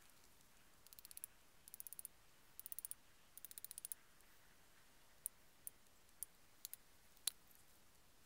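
Faint, sharp clicking: four short runs of rapid clicks in the first four seconds, then five single clicks.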